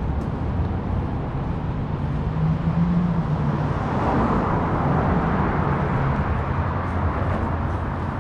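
Street traffic: a motor vehicle's engine hums steadily, and a swell of passing-traffic noise rises about four seconds in, then eases off.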